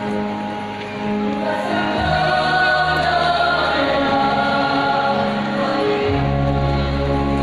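A large choir singing a Christian song together, over a low held accompaniment that changes chord about two seconds and six seconds in.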